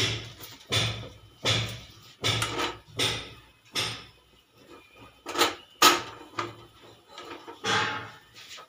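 Metal saucepan scraping on a gas stove's burner grate as it is rocked back and forth to swirl the hot oil, in short strokes about once every three-quarters of a second, sparser after the middle.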